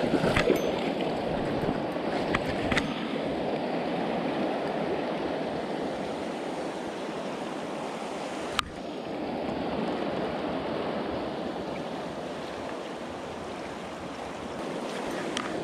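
Steady rush of river water, with a few faint clicks near the start and one sharp click a little over halfway through.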